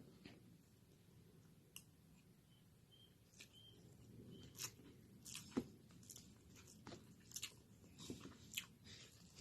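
Faint mouth sounds of someone eating pancit canton noodles: quiet chewing with scattered small clicks, more frequent in the second half.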